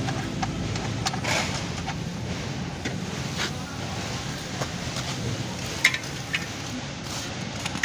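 Steady background noise with a few sharp clicks scattered through it, the loudest about six seconds in.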